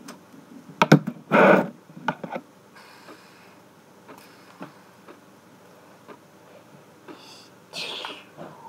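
Handling noise of a fidget spinner being flipped and caught: a few sharp clicks and a short loud clatter about a second in, more clicks around two seconds, and another brief rustle near the end.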